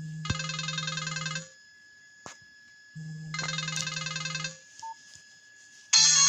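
Nokia 1280 ringtone sounding from the phone's small speaker: a quick warbling trill of high notes, each ring about a second long, heard twice about three seconds apart, each over a low buzz. Near the end a different, louder and more melodic ringtone starts.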